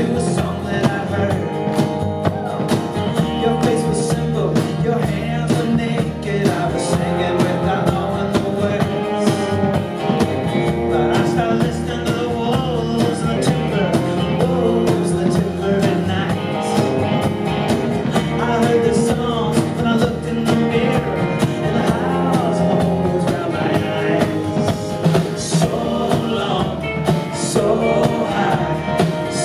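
Live folk-rock band playing a song: strummed acoustic guitar, electric guitar and plucked upright bass.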